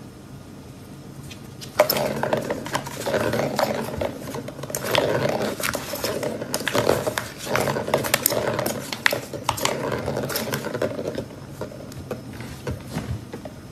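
Cat pawing at a round cardboard scratcher toy with a ball track: a busy clatter of the ball rolling and knocking in its track, mixed with claws on cardboard. It starts suddenly about two seconds in and thins out near the end.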